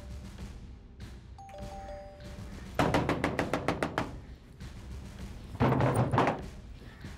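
A two-tone ding-dong doorbell chime about a second and a half in. Then rapid knocking on a wooden door with glass panes for about a second, and a second, heavier burst of banging on the door near the end.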